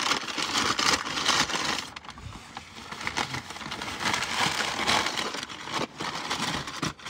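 Paper fast-food wrappers and bag being crumpled and rustled, crackling in several bursts.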